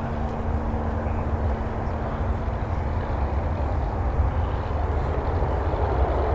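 Embraer E175's twin CF34 turbofan engines at climb power as the jet climbs out after takeoff: a steady low rumble that grows slightly louder.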